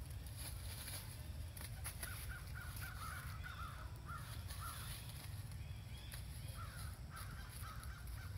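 A rapid series of short, high animal calls in two bouts, the first about two seconds in and the second near the end, over a steady low rumble.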